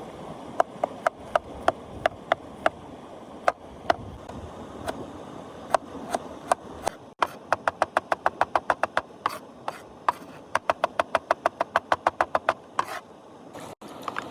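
Knife chopping on a wooden board: single sharp knocks at first, then fast runs of about four to five chops a second, stopping near the end.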